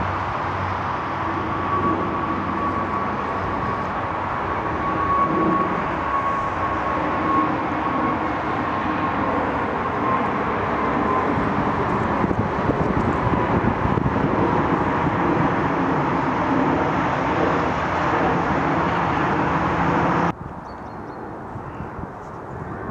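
Twin-engine jet airliner climbing out after takeoff overhead: a steady jet roar with a faint high whine that fades out about halfway through. Near the end it cuts abruptly to a quieter roar from another departing jet.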